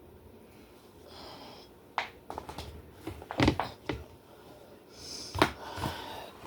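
Kitchen handling sounds: a quiet start, then a run of short knocks and clatters with brief rustling as food and containers are moved about on a counter.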